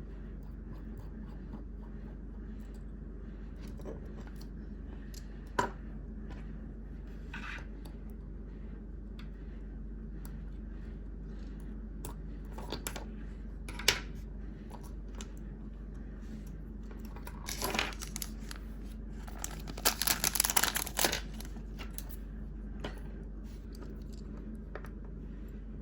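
Small hand-tool work on a smartwatch: a few isolated sharp clicks, then a crackling, scratching burst lasting a few seconds about eighteen to twenty-one seconds in, over a steady electrical hum.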